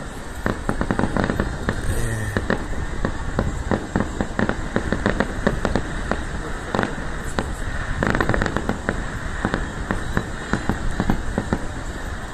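Aerial fireworks display: a continuous rapid barrage of crackling pops and bangs from shells bursting overhead.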